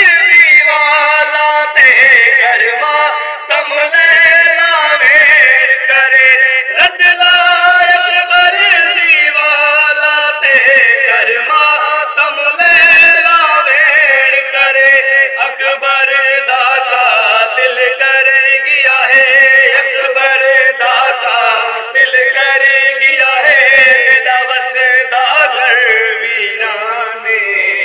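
Young men chanting a noha, a Shia Muharram lament, unaccompanied: sung voices carrying a slow, mournful melody line after line.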